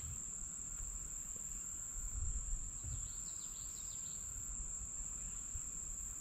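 Insects keeping up a steady, high-pitched drone, with a few faint bird chirps about three to four seconds in and a low wind rumble on the microphone.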